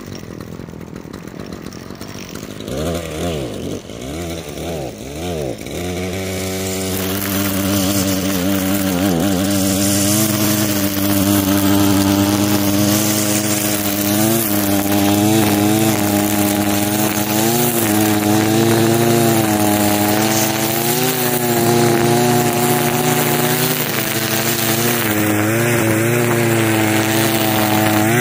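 Two-stroke gas string trimmer idling, then revved up and down in a few quick throttle blips. It is then held at high speed cutting back monkey grass (liriope), its pitch dipping and recovering as the line bites into the clumps.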